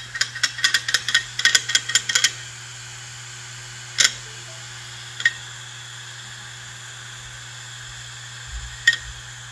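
Opened hard disk drive spinning with a steady low hum, its read/write head actuator clicking quickly for the first couple of seconds and then ticking singly a few more times as the drive tries to come up.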